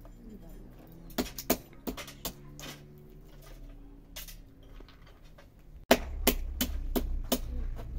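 Sharp clicks and clacks of walnut shells being cracked and picked apart by hand, a dozen or so separate knocks. About six seconds in, a steady low rumble comes in under them.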